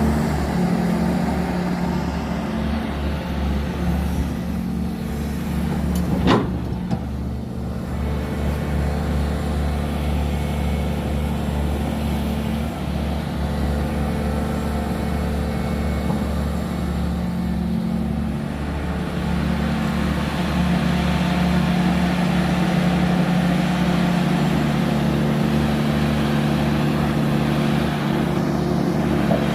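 Excavator's diesel engine running steadily, with one sharp click about six seconds in.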